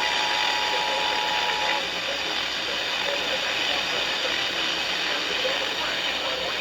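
The tail of the EAS two-tone attention signal (853 and 960 Hz together) stops about two seconds in. Heavy steady static hiss from a weak weather-radio signal carries on after it.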